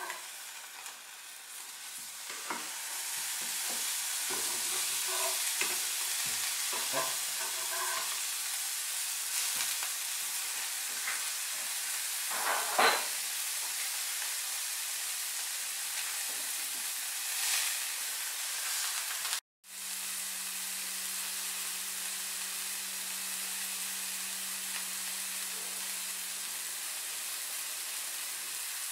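Tuna steak sizzling in a hot frying pan, the sizzle swelling a couple of seconds in as the fish is turned onto its second side, with a few light clicks against the pan. The sound cuts out briefly about two-thirds through, then the sizzling carries on steadily over a low hum.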